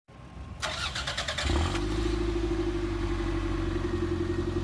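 1993 Toyota MR2 Turbo's 3S-GTE turbocharged four-cylinder on the stock exhaust, cranking on the starter, catching about a second and a half in, and settling into a steady idle.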